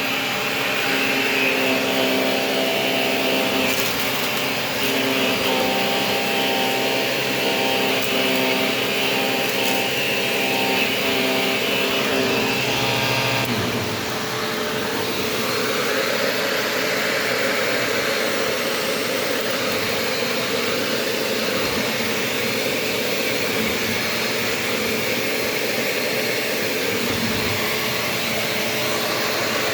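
Shark Navigator DLX upright vacuum cleaner running steadily while vacuuming a floor, a continuous motor hum whose tone shifts about halfway through.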